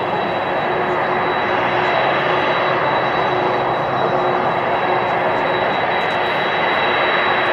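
Jet engines of a Boeing 747-400 freighter running as it taxis and turns on the runway: a steady rushing jet noise with a thin high whine, growing slightly louder.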